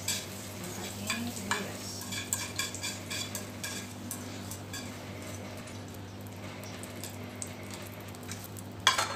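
Utensil clicking and scraping against a frying pan as tomatoes, onion and bell pepper are stirred, with a light sizzle. One loud metallic clank comes near the end.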